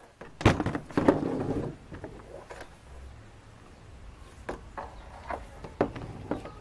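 Objects being handled on a wooden work board: a loud knock and scraping clatter about half a second in, then a few light clicks and taps near the end as a hot glue gun is set down.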